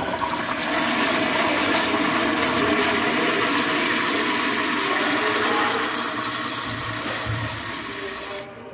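Kohler Kingston wall-hung toilet flushing through its flushometer valve: a loud, steady rush of water as the bowl clears a load of toilet paper, dying down near the end as the valve shuts off.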